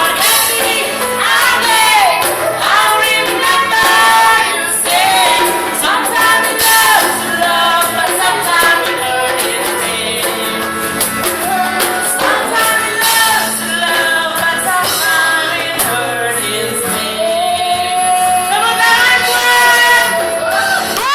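Singers performing a song over music, with long held, sliding notes.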